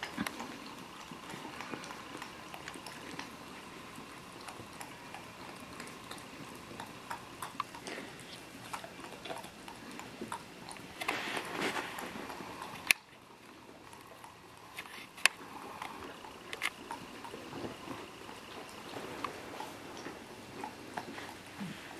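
Dogs licking and lapping at ice cream, with wet smacking and many short clicks of tongues and mouths, and a few sharper clicks now and then.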